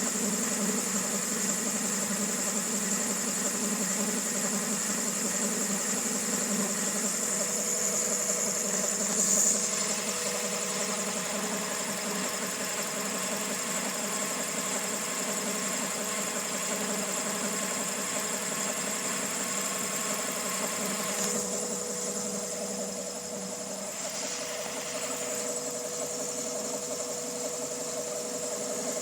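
Honda D16Y8 1.6-litre SOHC VTEC four-cylinder idling roughly, with a steady high-pitched whine over the engine sound and a brief click about nine seconds in. The owner suspects the cam pulley, the timing belt tensioner or a bearing.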